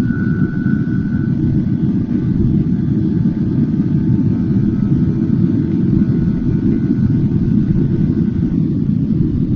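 Steady heavy wind rumble on the microphone from a Yamaha R15 sport bike riding at about 115 km/h, with the 155 cc single-cylinder engine running steadily under it as a faint hum.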